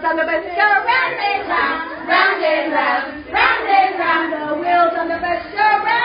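Young children and women singing a song together in a group, several voices at once.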